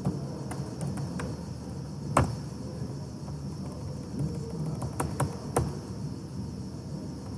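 A few separate computer keyboard key presses, sharp clicks with the loudest about two seconds in and a quick cluster of three near the five-second mark, over a steady low hum and hiss.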